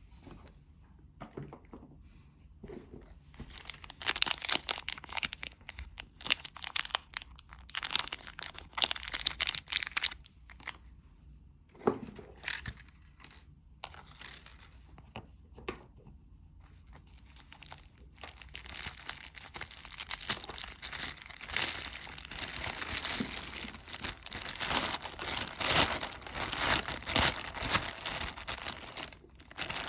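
Crinkling and rustling of packaging or bag material being handled by hand. It comes in bursts through the first half and runs nearly without pause through the second half.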